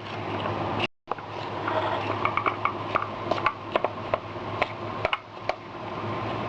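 Spoon clinking and scraping against a bowl in a run of short, irregular clicks as oiled raw mango pieces are stirred with spices, over a steady low hum. The sound drops out briefly about a second in.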